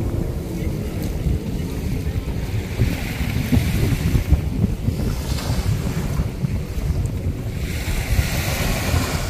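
Wind buffeting the microphone in a steady, gusty rumble, with a wash of sea waves that swells twice, about three seconds in and near the end.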